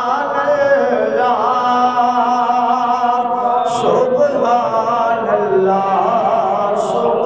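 A man singing a naat, an Islamic devotional poem, into a microphone in long held notes that waver and glide in pitch.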